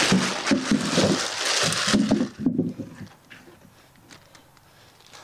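Freshly dug potatoes tipped out of a plastic compost bag into a steel wheelbarrow: the bag rustles and the potatoes tumble in with a run of knocks and thuds for about two and a half seconds. After that come only a few soft knocks as they are moved by hand.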